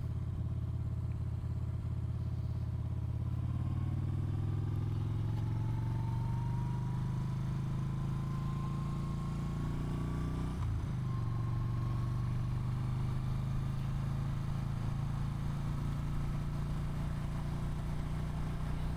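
2017 Yamaha Bolt's air-cooled V-twin running under way: the engine note climbs steadily for several seconds, breaks briefly about ten seconds in at a gear change, then runs on at a steady pitch.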